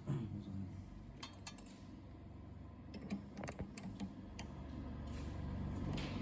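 Scattered light clicks and taps of small hard objects, a few single ones and a quick cluster near the middle, over a low steady hum.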